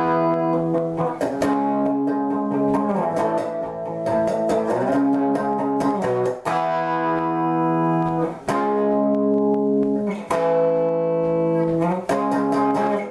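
Background music: electric guitar playing sustained chords that change every second or two.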